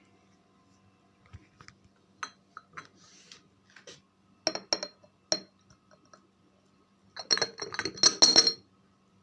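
Glass on glass: a drinking glass clinking against a glass jar as ground pepper is emptied from it. A few light clicks, then three sharp ringing clinks near the middle, and a quick run of rapid clinks and taps near the end.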